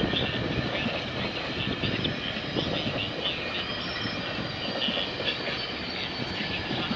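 GO Transit commuter train rolling past, a steady rumble of steel wheels on the rails.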